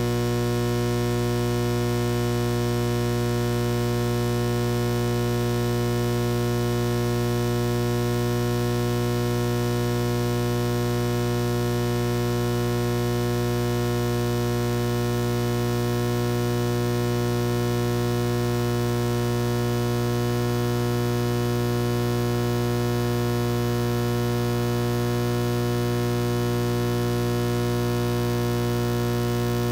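Steady electrical mains hum: a loud, unchanging low buzz with a stack of higher steady tones above it.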